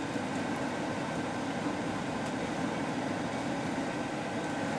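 Cummins diesel pickup truck running steadily at a crawl of about 3 mph while pulling a heavy trailer load, heard from inside the cab.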